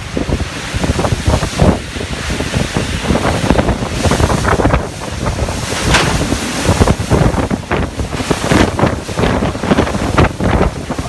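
Hurricane winds gusting hard and buffeting the microphone, a loud, rushing roar that surges again and again.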